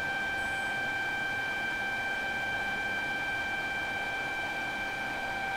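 Motor load-test rig running at full speed under heavy load, the drive near its 60-amp full-load current: a steady whine over an even hum of machinery, with no change in pitch.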